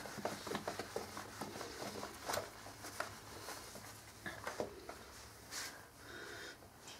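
Whiteboard eraser wiping a whiteboard clean: soft rubbing with scattered light clicks and ticks, fairly faint.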